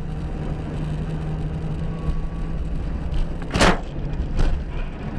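Steady engine and road rumble of a moving car. A single sharp bang comes about three and a half seconds in, with a lighter knock a second later.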